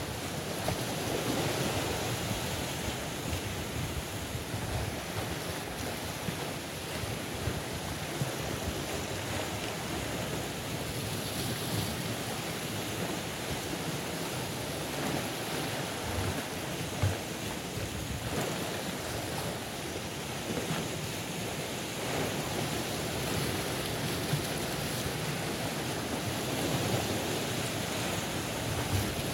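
Sea surf washing and breaking against a rocky shore, a steady rush of water that swells and eases.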